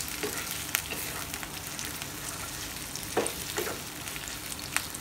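Chopped onions and green capsicum sizzling in hot olive oil in a non-stick kadhai over a high flame, with a steady frying hiss. A wooden spatula stirs them, giving a few sharper scrapes against the pan.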